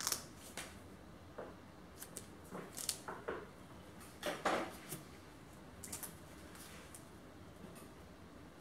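Gloved hands handling a small plastic ball shell on a silicone mat: scattered light clicks and taps with brief glove rustles, the loudest rustle about halfway through.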